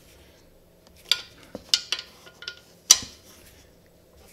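A hand tool clinking against the valve-cover bolts of a Honda mower engine as they are snugged and checked for tightness by hand: a run of irregular sharp metallic clicks, the loudest about three seconds in.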